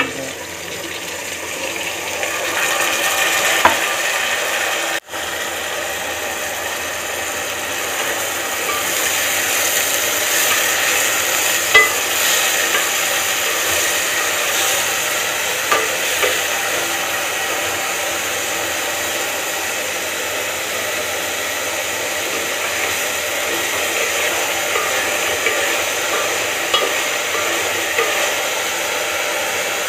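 Washed whole green moong dal sizzling in hot oil with fried onions in a metal pot as it is stirred with a spoon: a steady frying hiss with a few sharp clicks of the spoon against the pot.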